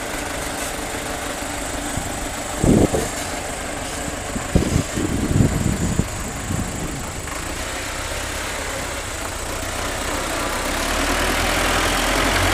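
Two diesel tractor engines, a Belarus and a Swaraj 855, running steadily under load in a tug-of-war, getting louder over the last couple of seconds as the rear wheels spin in the dirt. A few brief, louder bursts stand out about three seconds in and again around five to six seconds in.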